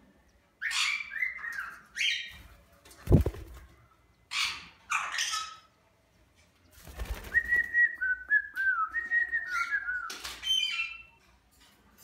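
Cockatiels giving short, harsh sweeping calls, then a long warbling whistled song from about seven to ten seconds in, followed by a few more calls. A single loud thump comes about three seconds in.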